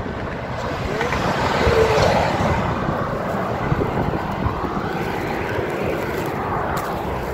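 Steady road noise of highway traffic passing close by, swelling as a vehicle goes past about two seconds in.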